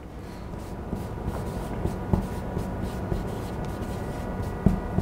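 Felt-tip marker scratching and squeaking across flip-chart paper as words are written, with a couple of soft knocks near the end.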